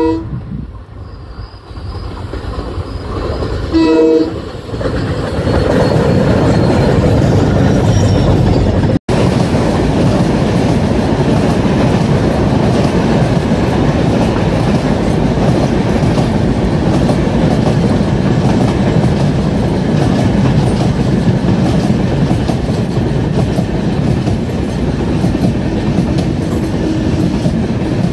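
WDP4D diesel locomotive giving a short horn blast about four seconds in as it approaches. Then the locomotive and its passenger coaches run past with a loud, steady rumble of wheels on the rails.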